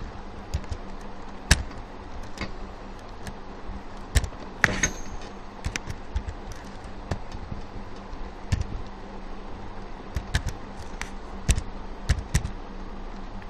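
Computer keyboard keys clicking at an irregular pace as characters are typed, a few strokes at a time, over a steady low hum.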